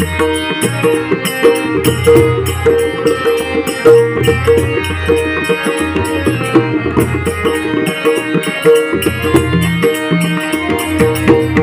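Konkan bhajan music: harmonium held tones over pakhawaj and tabla drumming, with the drum strokes coming in a quick, steady rhythm.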